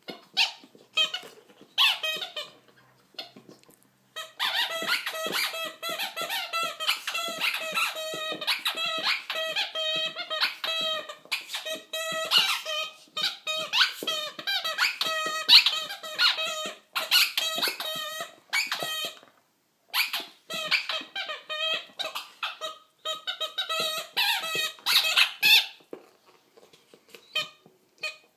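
Squeaky toy ball being squeezed over and over, a fast string of short, high squeaks. It starts with a few scattered squeaks, turns into near-continuous rapid squeaking about four seconds in, stops briefly, then resumes and thins out near the end.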